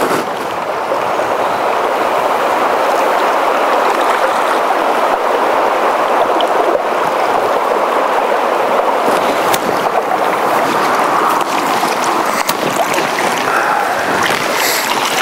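Steady rush of a fast, shallow river running over stones in a riffle.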